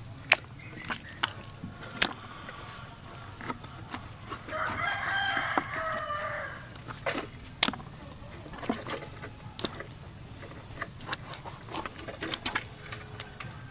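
A rooster crows once, about four and a half seconds in, for roughly two seconds. Sharp clicks and knocks of a knife blade against a plastic cutting board, as raw beef is sliced, are scattered throughout.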